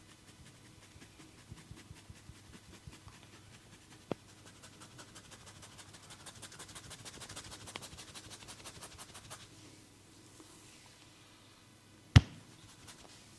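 Fast, even rubbing strokes of a barber's hands on a head, several a second for about five seconds, with a small click about four seconds in. Near the end comes one sharp, loud crack, the loudest sound here.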